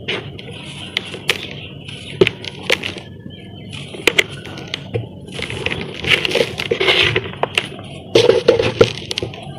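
Dry pure-cement chunks crumbling and breaking in bare hands, with scattered sharp cracks and powder sifting into a plastic tub. The crumbling grows denser about six seconds in and again near the end.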